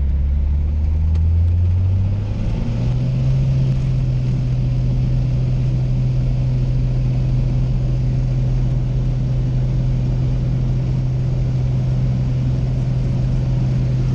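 Piston engine and propeller of a single-engine high-wing light aircraft, heard from inside the cabin. The engine note rises in pitch about two to three seconds in as power comes up, then runs steady while the plane taxis over grass.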